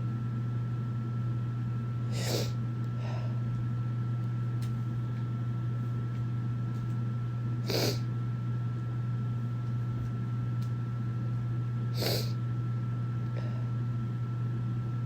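Three short, sharp sniffs through a congested nose, about five seconds apart, over a steady low hum.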